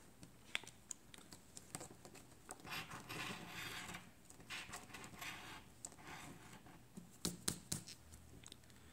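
A coin scratching the coating off a lottery scratch-off ticket: faint scraping strokes in short runs, with a few light clicks of the coin near the end.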